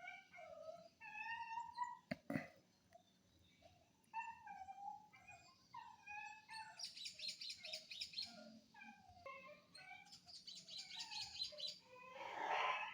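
Puppies whimpering and whining in a continuous string of short, high-pitched calls, some rising and some falling. Twice there is a rapid, very high chirping trill, and a brief scratchy burst comes near the end.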